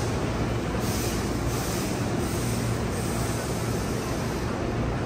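Hankyu electric train moving through the station: a steady low hum, with several short spells of high hiss from the wheels and rails in the first few seconds.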